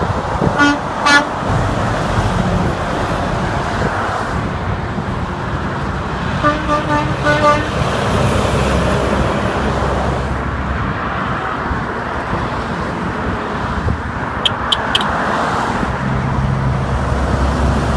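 Steady highway traffic passing, with vehicle horns honking: two short toots about a second in and a string of several honks around six to seven seconds in. Three sharp clicks come near the end, and a truck engine's low drone builds as it approaches.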